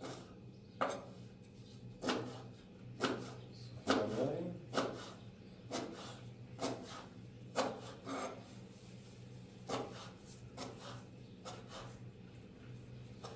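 A run of short rubbing or scraping strokes on wood, roughly one a second and unevenly spaced, over a steady faint low hum.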